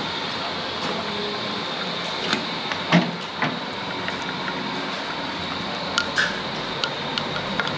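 Scattered clinks and knocks of kitchen utensils over a steady background hiss. The clearest come about three seconds in and again about six seconds in, as a spoon stirs in a small stainless steel cup.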